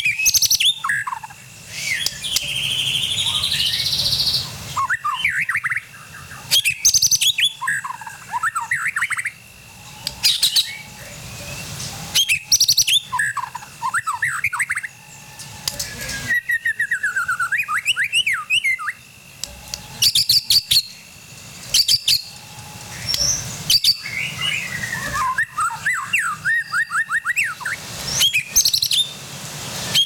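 White-rumped shama singing: a loud, varied song of rising and falling whistles, fast trills and sharp clicking notes, delivered in phrases with short pauses between them.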